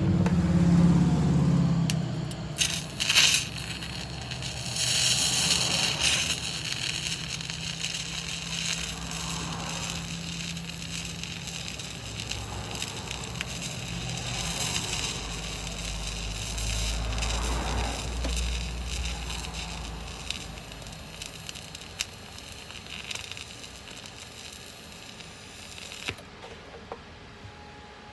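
TIG welding arc on stainless steel, run without filler rod: a steady crackling hiss, with louder, sharper crackles in the first few seconds. It cuts off suddenly near the end as the arc is broken.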